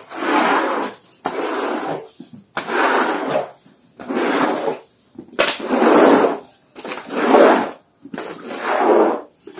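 Floor squeegee scraping across a wet, rough concrete floor, pushing off soapy foam in a steady series of about seven strokes, roughly one a second.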